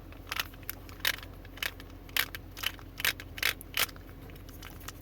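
Small metal parts of a Schlage knob lock clicking and clinking as the lock is taken apart by hand: a string of sharp, irregular clicks, about eight louder ones.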